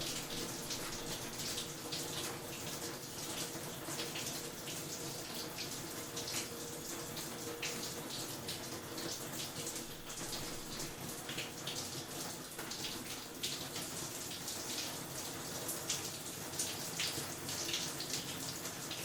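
Shower running steadily, water spraying and splattering, with many small irregular splashes on top of the even rush of water.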